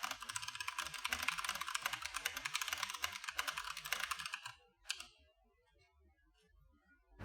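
Mechanical keyboard being typed on fast, a dense run of key clicks that stops about four and a half seconds in, with one last keystroke just before five seconds.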